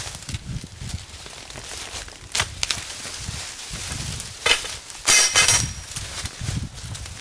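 Dry leaf litter and soil rustling and crackling as an uprooted honeysuckle bush's root ball is pulled free and shaken, dirt scattering onto the leaves. Scattered crackles, with the loudest rustle a little after halfway.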